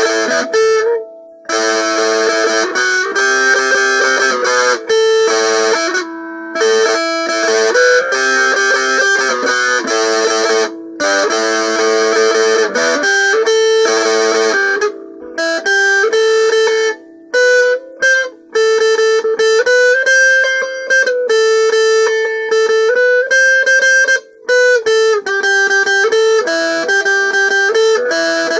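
Guitar playing a melody, with held notes and short breaks between phrases.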